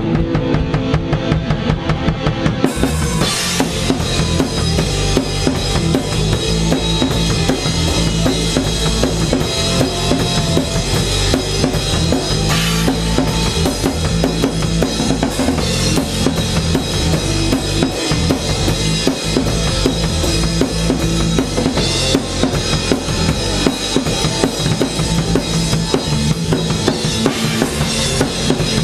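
Live band playing with the drum kit up front, heard from the drummer's head-mounted camera: kick drum and snare beating steadily. Cymbals come in about three seconds in and keep washing over the rest of the band.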